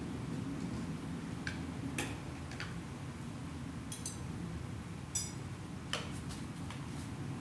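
About half a dozen scattered light clicks and taps from a hand-held spray bottle and a plastic bin being handled, two of them with a brief high ring, over a steady low background rumble.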